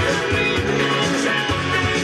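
Background music: a rock track led by guitar, with a steady beat.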